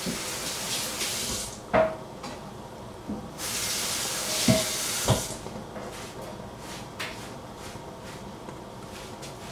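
A kitchen tap running into a sink in two short bursts of a second or two, turned on and off, with a few clinks of dishes that ring briefly; after that only faint ticks.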